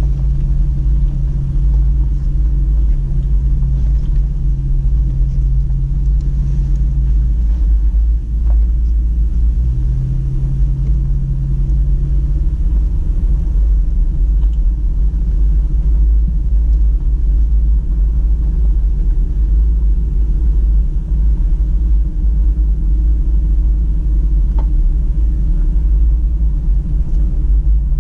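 Toyota Tacoma driving along a rough dirt trail: a steady heavy low rumble of the engine and tyres, with a humming engine tone that fades out twice and comes back near the end.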